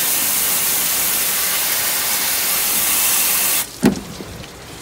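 Water spraying hard onto a Toyota Tundra's sheet-metal cowl panel below the windshield: a steady, loud hiss that cuts off suddenly about three and a half seconds in, followed by a single knock. The spraying is a leak test, flooding the cowl to find where water gets into the passenger footwell.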